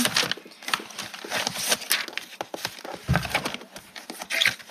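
Paper scrapbook pieces rustling, with quick light clicks and taps on the table as they are sorted through, and a dull thump about three seconds in.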